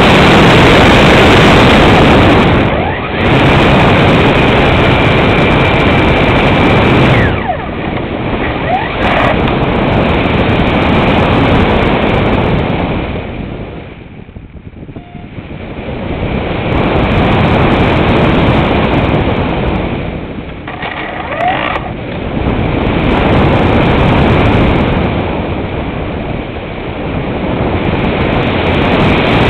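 Loud rush of air over the microphone of a camera riding on a model glider in flight, swelling and fading with the glider's speed. It dies down to its lowest about fourteen seconds in, while the nose points up at the clouds, then builds again.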